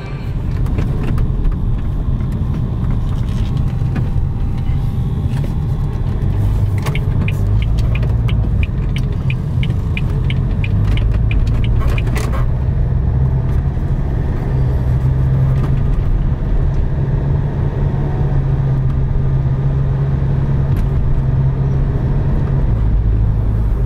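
Renault Espace IV's 2.0 dCi four-cylinder diesel engine idling steadily, heard from inside the cabin. About seven seconds in, a quick run of sharp ticks, about four a second, lasts for some five seconds.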